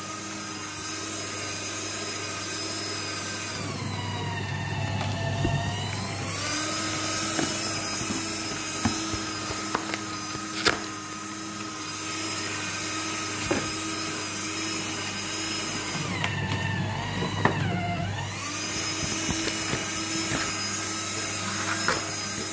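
Electric paper shredder running with a steady motor whine, slowing twice with a sagging pitch that then recovers as pieces of cardboard box are forced through it. Scattered sharp clicks come from the cutters.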